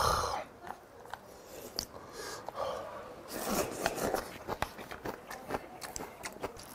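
A person slurping hot seafood ramen broth from a bowl: two short slurps about two and a half and three and a half seconds in. Light clicks run throughout.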